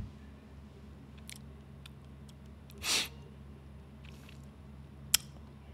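Low steady hum, with a short sniff about three seconds in and a single sharp click near the end.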